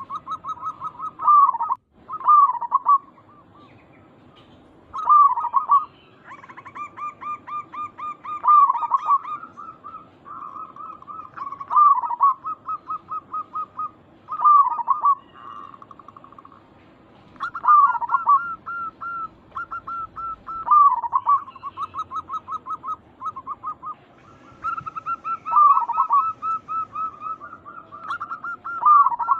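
Zebra doves (perkutut) singing: rapid runs of short, clipped coos, broken about every three seconds by a louder downslurred coo. A fainter, higher-pitched run of notes joins in at times.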